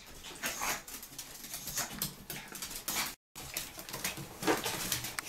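Chihuahua making short whimpers and yips in rough play with a ferret, over rustling of bedding; the sound drops out for a moment about three seconds in.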